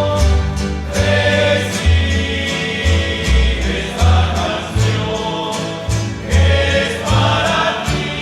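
Rondalla group performing: voices singing together in chorus over strummed guitars and a bass line that steps from note to note.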